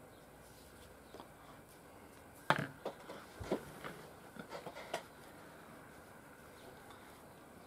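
Handling sounds at a table: a handful of light knocks and clicks between about two and five seconds in, the loudest near the start of the cluster, as the birch-bark knife sheath is set down on the table and a cloth rag is picked up.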